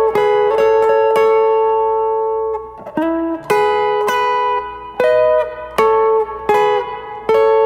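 Clean electric guitar picking a Congolese sebene lick on the second and third strings: bright plucked notes ringing into each other in short repeated phrases, with a few slides between notes and brief breaks between phrases.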